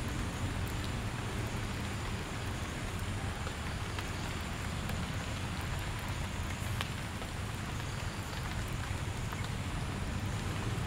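Light rain falling as a steady, even hiss, with a few faint ticks of single drops.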